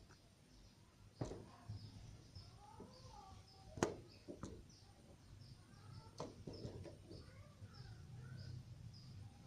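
Faint birds chirping in the background, with a few sharp knocks and clicks of things being handled; the loudest knock comes a little under four seconds in.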